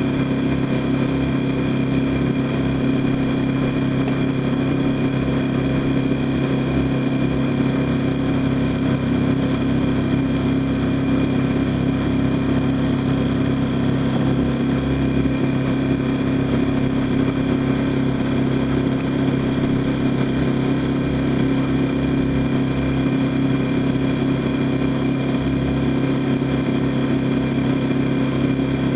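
A small engine running steadily at one speed: a constant low drone that never changes in pitch.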